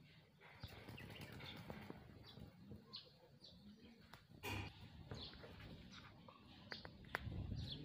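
Faint birdsong: small birds chirping over and over with short high notes, and a low call repeating underneath. A brief bump about four and a half seconds in.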